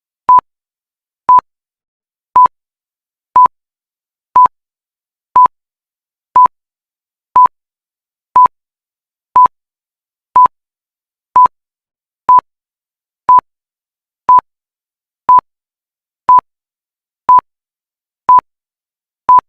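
Countdown timer beeping: short, identical pure-tone beeps, one each second, marking each second as it counts down.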